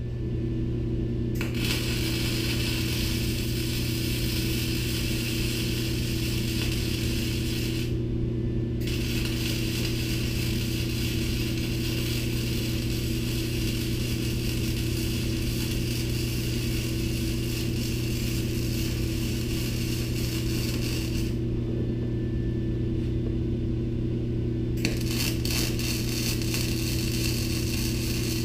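Electric arc welding of steel angle-iron brackets onto a lawn tractor frame. The arc crackles and hisses in three long runs, stopping for about a second around eight seconds in and for a few seconds past twenty. A steady electrical hum runs underneath.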